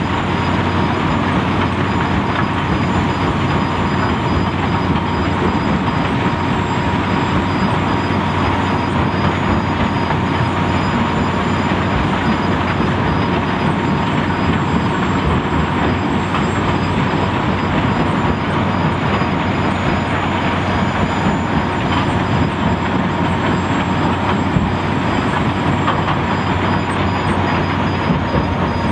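Lokotrack LT125 mobile jaw crushing plant running steadily with rock passing through it, a dense, unbroken mechanical din of crushing and rattling stone over running diesel engines, with a steady whine in it.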